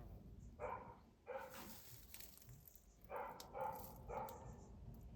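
A dog barking five times: two barks about a second in, then three more in quick succession a couple of seconds later.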